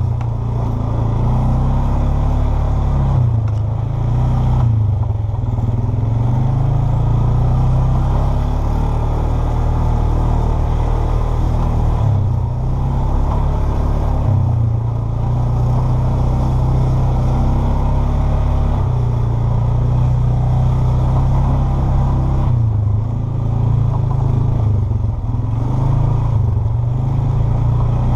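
A Polaris Sportsman 500 ATV's single-cylinder four-stroke engine running as the quad is ridden. The engine speed dips and climbs again several times along the way.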